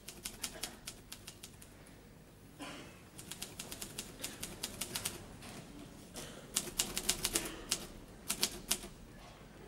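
Typewriter keys striking in four quick runs of keystrokes, with short pauses between the runs.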